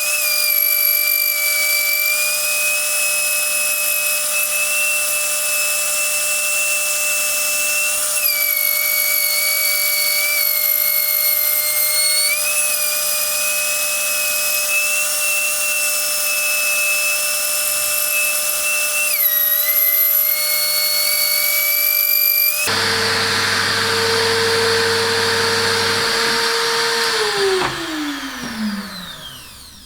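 A high-speed grinder whines steadily, its pitch dipping briefly three times as it takes load. About three-quarters of the way in the whine stops, leaving a lower steady hum that winds down, falling in pitch, near the end.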